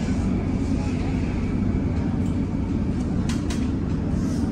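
Steady low rumble of a moving vehicle, with two short clicks about three and a half seconds in.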